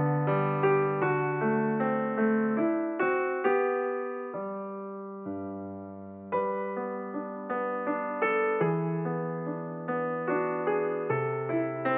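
Background piano music: slow notes and chords, each struck and fading away, growing quieter about halfway through before picking up again.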